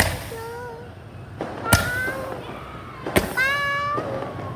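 Fireworks going off: three sharp bangs about a second and a half apart, each followed by a drawn-out, high, voice-like cry.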